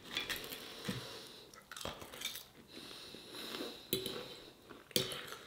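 Metal fork clinking and scraping on a plate, with a few sharp clinks, and chewing.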